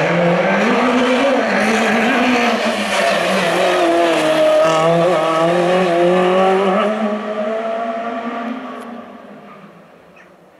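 Peugeot 205 rally car's engine running hard, its note rising and falling as the driver works the throttle and gears through the cones, then fading as the car pulls away.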